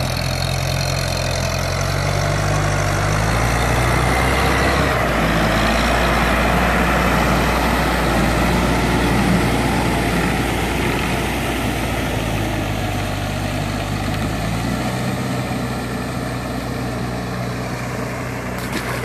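Tractor's diesel engine running steadily as it tows a tiller through a flooded rice paddy. Its pitch rises about four seconds in, drops back near the end, and the sound grows louder in the middle before easing off.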